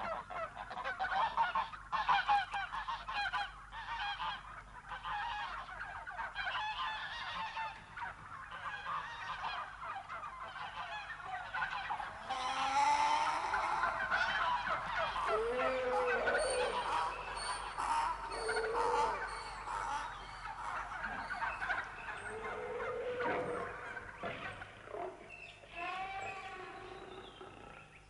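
A crowd of birds honking and squawking, many calls overlapping; from about halfway, lower drawn-out calls that slide up and down in pitch join in.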